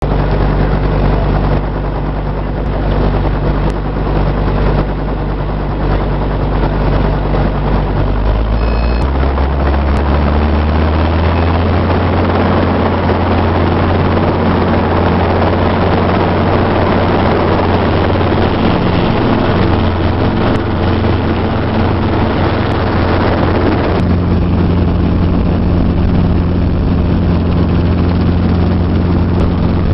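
Helicopter engine and rotor running steadily, heard from inside the cabin as a loud low hum; about nine seconds in the hum steps up in pitch and then holds steady.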